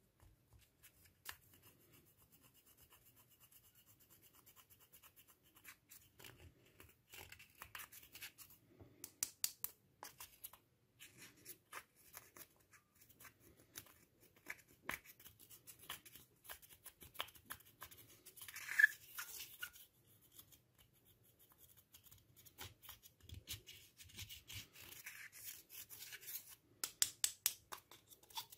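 Plastic tool scraping and picking at pressed eyeshadow in its metal pan, crumbling it to powder: faint, irregular scratching with scattered small clicks, a few louder clicks near the end.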